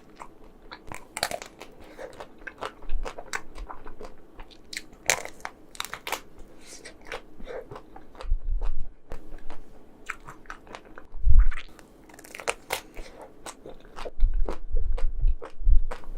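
Close-miked biting and chewing of chocolate ice cream: many sharp crunches and wet clicks, with a few dull low thuds about eleven seconds in and again near the end.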